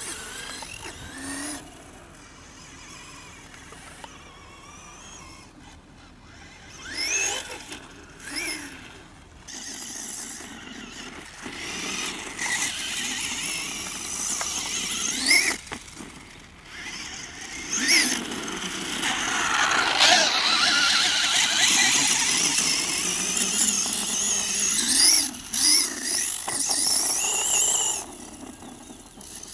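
Electric radio-control cars' motors whining as they are driven hard on sand, the pitch rising and falling over and over with the throttle. It is loudest in the second half, where a rushing noise joins the whine.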